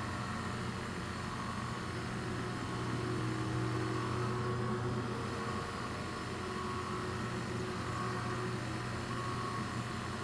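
Thunderbolt siren's rotator motor running at 8 RPM, turning the horn with a steady low hum.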